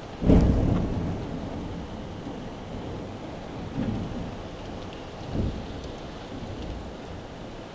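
Heavy rain pouring in a violent windstorm, with a sudden loud low boom about a quarter second in that fades over about a second, and two weaker low swells later on.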